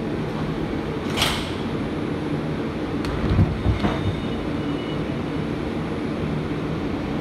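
Bombardier R142 subway car at a station stop as it closes up and starts to pull out: a short burst of air hiss about a second in and a few dull thuds around three and a half seconds in, over the car's steady running hum.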